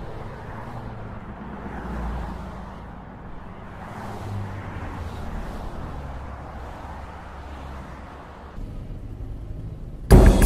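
Road traffic passing: vehicles going by with engine and tyre noise that swells and fades a couple of times. A sudden loud hit comes right at the end.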